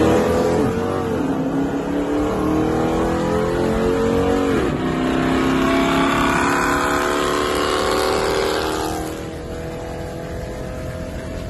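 Dodge R/T 5.7-litre HEMI V8s at full throttle in a street race, heard from inside one of the cars. The engine note climbs, drops sharply at a gear change about four and a half seconds in, and climbs again. About nine seconds in it eases off and quietens as the throttle is lifted.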